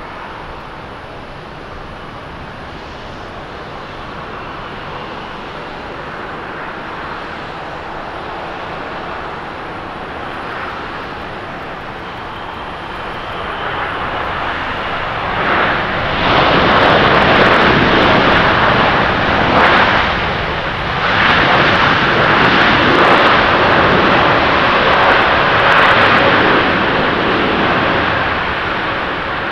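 Twin Rolls-Royce Trent 1000 jet engines of a Boeing 787-10 on landing. A steady jet hum on final approach swells about halfway through into the much louder rush of reverse thrust, which holds, wavering, then eases near the end.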